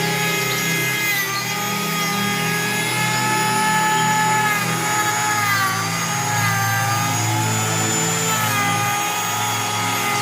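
Woodworking power tool running steadily with a high whine while machining wooden door parts; its pitch dips briefly twice, about six and nine seconds in.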